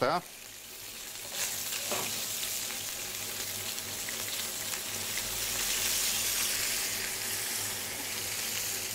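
A fish-stock sauce with vermouth and shallot sizzling in a frying pan over a gas flame as cream is poured in. The sizzle is steady and swells a little in the middle.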